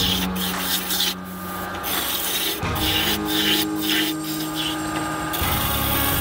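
Wood lathe spinning a cherry blank while a hand-held gouge cuts it: a rough, scraping hiss of the tool shaving wood, coming and going with each pass.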